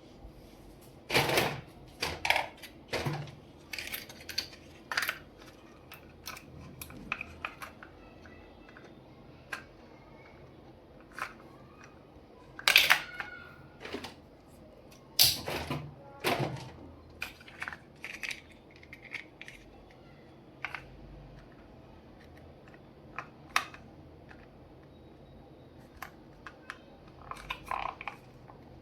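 Small plastic toys and doll accessories being handled and set down: irregular clicks, taps and knocks, the loudest a few about halfway through.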